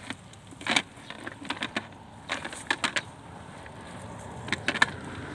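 Scattered light clicks and taps with soft rustling as a wet cast net is shaken out and picked over a plastic crate of live fish, its weighted edge and the fish knocking against the crate.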